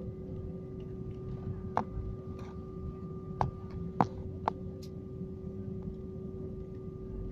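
Steady cabin hum of an Airbus A319 taxiing, its engines near idle, with a constant mid-pitched tone. About four sharp knocks or clicks come in the middle, between roughly two and four and a half seconds in.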